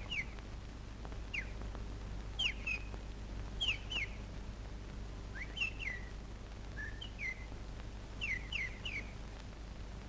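Nightingale singing: short, sharp, downward-slurred chirping notes, singly or in quick little groups, about two a second. They sound over the steady hum and hiss of an old film soundtrack.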